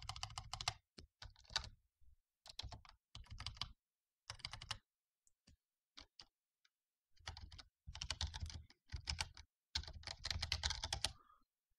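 Computer keyboard typing in quick bursts of keystrokes. It thins to a few single clicks for a couple of seconds midway, then a longer, faster run of typing near the end.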